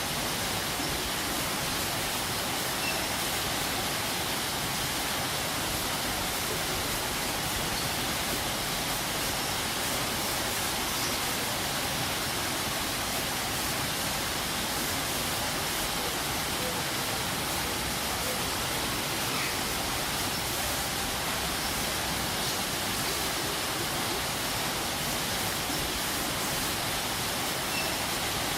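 Waterfall: water pouring steadily in a dense, even rush that does not change.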